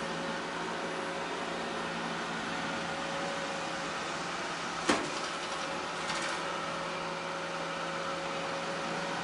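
iLife A9 robot vacuum running with a steady motor hum and whine. About halfway through there is one sharp knock, and a second later a few lighter clicks.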